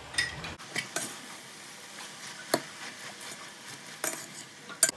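Metal spoon stirring spinach in a stainless steel pot, clinking and scraping against the pot's side in several sharp knocks, the loudest about two and a half seconds in.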